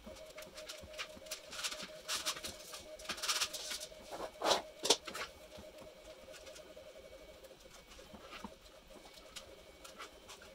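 3D-printed PLA lamp parts being handled and pressed together on a wooden floor: a run of light plastic clicks and rattles, busiest in the first half, with two louder knocks about four and a half seconds in, then only occasional clicks.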